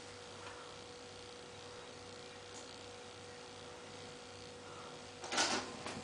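A faint steady hum, then about five seconds in a brief mechanical noise as a disc player's motorised tray slides open with a disc on it.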